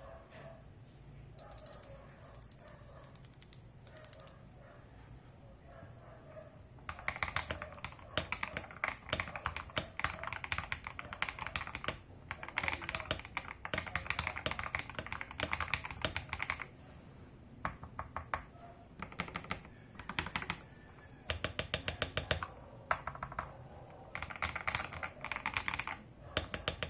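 Royal Kludge RK71 mechanical keyboard with hand-lubed KTT Kang White V3 linear switches in a foam-dampened case being typed on. A few scattered keystrokes at first, then from about seven seconds in, fast typing in runs of rapid keystrokes separated by short pauses.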